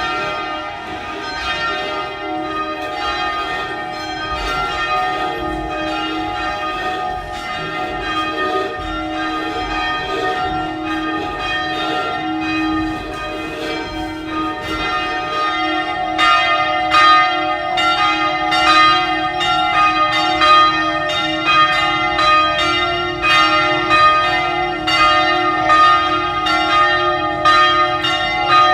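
Peal of three bronze Paccard church bells tuned to F, G and A, struck over and over so their long ringing tones overlap. The strokes come thicker and louder a little past halfway.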